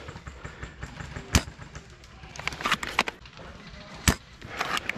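Two sharp shots from a spring bolt-action airsoft sniper rifle (VSR), roughly three seconds apart, with smaller clicks and rustling between them as the rifle is handled.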